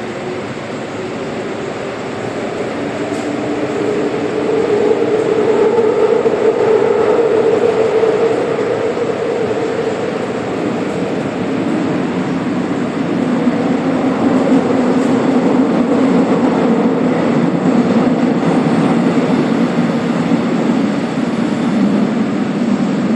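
Interior running noise of a Seoul Subway Line 4 train car with Dawonsys IGBT VVVF traction equipment: a steady rumble of wheels on rail under a traction-motor hum. It grows louder over the first few seconds, and the hum sits lower in pitch in the second half.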